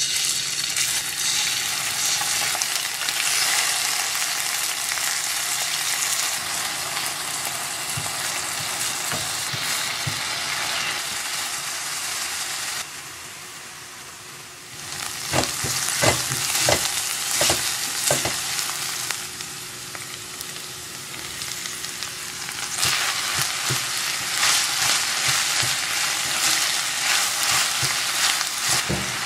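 Chicken sizzling in hot oil in a frying pan, the hiss dipping and swelling as it is turned and stirred. About halfway through comes a run of sharp knocks of a cooking utensil against the pan, and near the end the chicken sizzles with diced vegetables as they are stirred.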